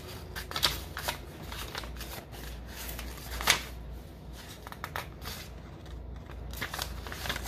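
Paper rustling and flicking in short bursts, with a sharper snap about three and a half seconds in, over a low steady hum.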